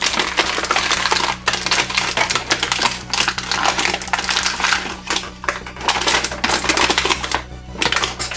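Polystyrene foam packaging tray creaking and scraping under handling as foam darts are pulled out of its slots: a dense, continuous run of crackles and scratches.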